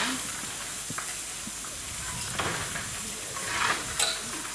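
Steady hiss of steam escaping from a standing narrow-gauge steam locomotive, with two short scraping rushes as a shovel digs into the coal and a sharp clink near the end.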